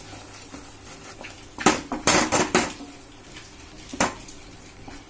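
Wooden spatula stirring thick khoa in a nonstick pan, scraping and knocking against the pan: a quick cluster of about four knocks around the middle and one more near the end.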